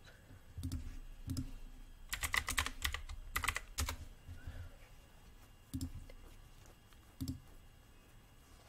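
Computer keyboard typing: a quick run of keystrokes about two seconds in and a shorter run about a second later, as a web address is typed. A few soft low knocks come before and after.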